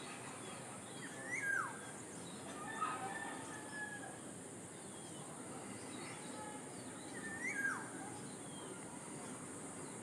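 Black-naped oriole calling: a few short whistled notes that rise and then drop steeply, about a second and a half in, around three seconds in, and again near seven and a half seconds. Under them runs a steady high-pitched background hiss.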